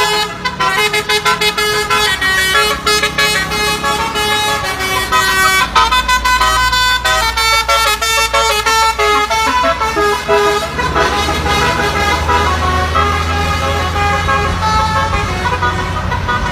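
Basuri, a multi-tone musical bus horn, playing a pop song melody in quick stepped notes, then longer held notes. A bus engine runs underneath, coming up from about six seconds in.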